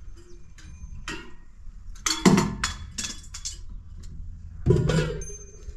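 A series of sharp knocks and clatters: one light click, then a quick run of knocks with a little ringing, then a single heavier knock near the end.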